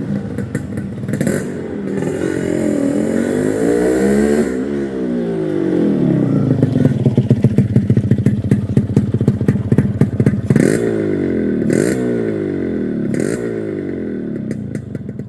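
Yamaha RX135's two-stroke single-cylinder engine being ridden, revving up and easing off, with three quick throttle blips about two-thirds of the way through before it drops away near the end. It has a sharp exhaust beat, from a silencer whose core has been altered.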